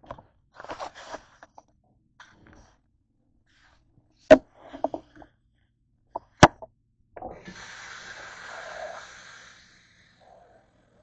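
Kitchen clatter as a saucepan is handled at a stainless-steel sink: a few light clinks, then two sharp knocks. Then the tap runs into the nonstick saucepan for about two and a half seconds before fading.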